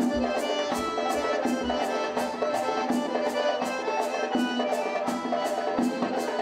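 Traditional Circassian folk dance music: a melody over a steady, sharp percussive beat of about three strokes a second.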